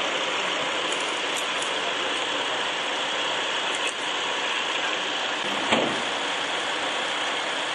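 Steady engine noise of an ambulance idling, with one short thump about six seconds in.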